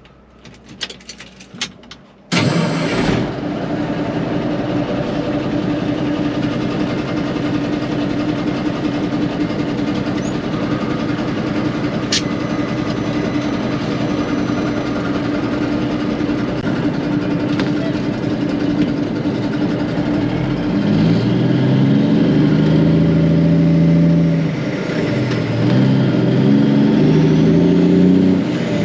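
Ford L9000 truck's Cummins diesel engine cranking and catching about two seconds in, then running steadily. Near the end it is revved up and down several times.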